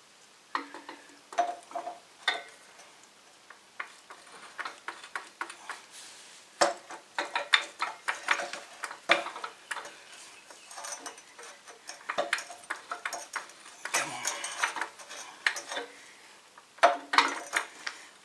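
Gearbox being worked by hand onto the bellhousing of a Ford flathead V8: irregular metallic clanks, knocks and scrapes, some with a short ring, as the input shaft is jiggled toward the clutch but is not yet in the splines.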